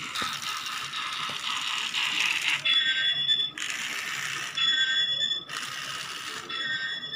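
Battery-powered Talk N Action Thomas toy train running, its small electric motor and plastic drive gears whirring, with a steady high whine that comes and goes about every second.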